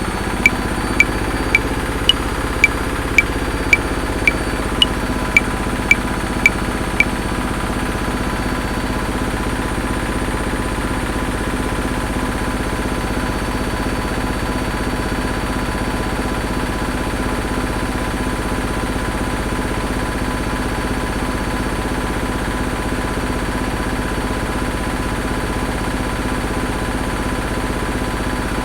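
Washing machine running steadily, a continuous hum with a faint low pulse. Over it a metronome clicks at 110 beats per minute in 5/4, the first beat of each bar accented; the clicks stop about seven seconds in, leaving only the washing machine.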